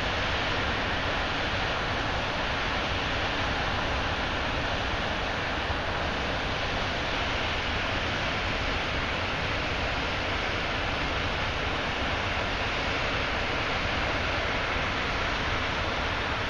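Heavy river flow pouring over a low concrete dam: a steady, even rush of falling water and churning whitewater below the spill.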